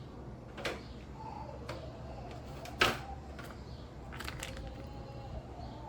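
Kitchen handling sounds while raw bacon slices are laid out on a baking tray: a few sharp clicks and knocks, the loudest about three seconds in, and a short rustle a little past four seconds.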